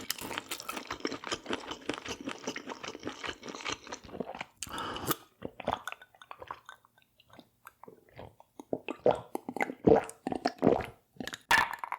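A person chewing food close to the microphone, with crunching and wet mouth sounds: dense for the first few seconds, then sparser separate crunches.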